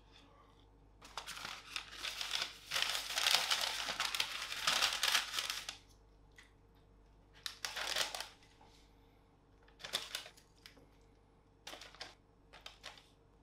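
Kraft paper bag crinkling as it is handled and opened, one long rustle for about five seconds, then three shorter crinkles as food is loaded into it.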